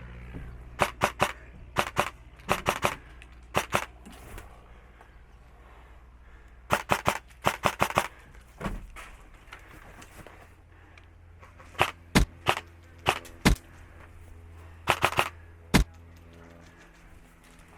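Airsoft electric guns firing BBs in short bursts and single shots: sharp cracks in quick groups of two to six, with pauses of a second or more between groups.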